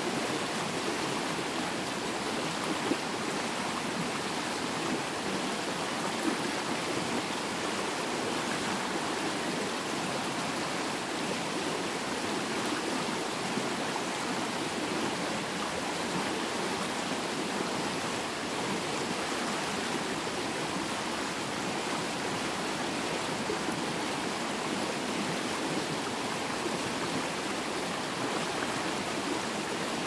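River water flowing in a steady, even rush.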